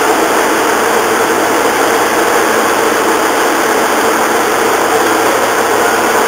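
A loud, steady mechanical drone of running machinery, unchanging throughout.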